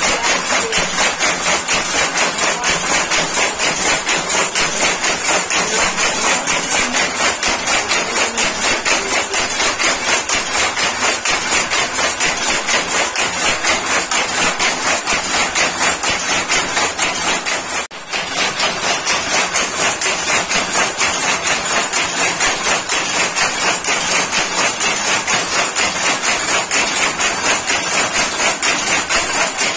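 Power loom weaving sari cloth, clacking in a fast, even rhythm of about three beats a second as the shuttle is thrown and the beater strikes each pick. The clatter drops out briefly about eighteen seconds in.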